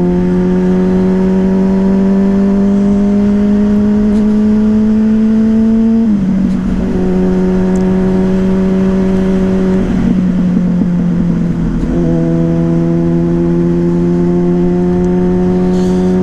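Yamaha Fazer 600 motorcycle's inline-four engine with a WR slip-on exhaust, heard while riding. Its pitch climbs slowly under acceleration, drops suddenly about six seconds in, then holds fairly steady. The rider finds it running strangely high-revving and suspects the air filter he changed or bad fuel from a roadside fill-up.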